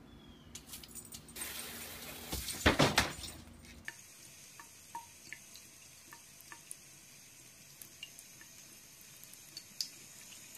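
A brief loud burst of noise about three seconds in. Then a thin stream of water runs from a bathroom faucet into the sink, with faint scattered ticks as a cat laps at it.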